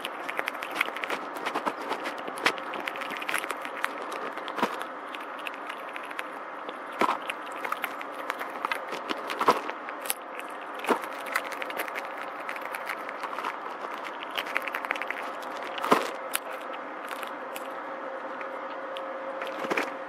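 Gray squirrel eating seeds in a feeder, close up: irregular crackling clicks and scrapes as it cracks seed shells and rummages through the seed, with a few louder sharp cracks.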